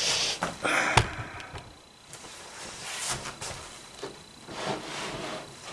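Wooden parts of a grand piano's action being handled: a sharp knock about a second in, then lighter knocks and rubbing.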